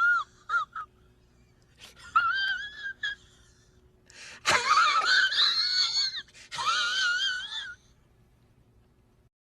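High-pitched, wavering, wheezy vocal sound effect in three long bursts, with a couple of short squeaks between them.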